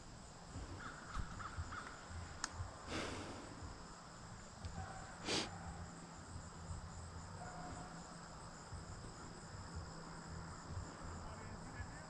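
Quiet field ambience: crickets chirring steadily in a high, even trill, with a few faint, short, distant sounds.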